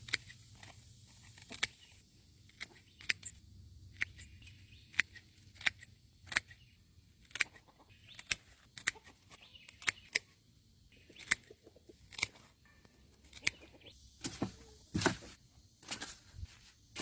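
Dry cucumber vines being torn down, giving irregular sharp snaps and crackles about once or twice a second with soft rustling between.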